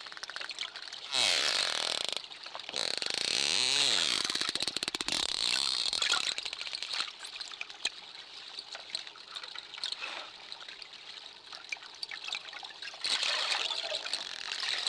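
Dolphins heard underwater, making rapid click trains and buzzing pulsed calls over a hiss of water and bubbles. The calls come in loud bursts about a second in, again from about three to six seconds, and near the end.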